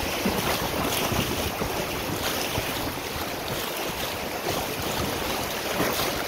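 River rapids rushing and splashing, with wind buffeting the microphone in irregular gusts.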